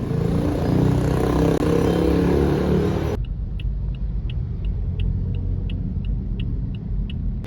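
Vehicle rumble, as of road and engine noise from a moving car. About three seconds in it changes abruptly to a duller low rumble with a faint, regular ticking, about three ticks a second.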